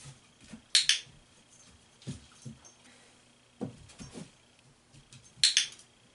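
A handheld dog-training clicker clicking twice, each a quick double click, once about a second in and again near the end, marking the dog's paw touch on the target. Soft low thuds come between the clicks.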